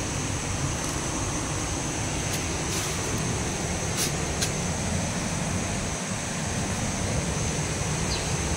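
Steady rushing background noise with a constant high-pitched insect drone above it, and a few faint ticks.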